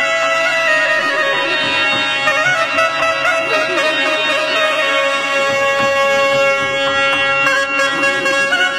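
Pashto folk instrumental music: a reedy wind instrument plays a melody over a steady held drone note.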